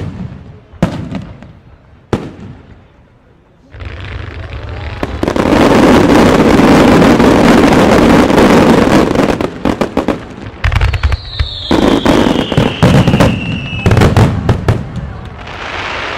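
Wide starmine fireworks barrage fired close by. A few sharp bangs open it; from about four seconds in, shells burst in a dense continuous rattle for several seconds. A run of separate loud bangs follows, with a falling whistle among them, and it tails off near the end.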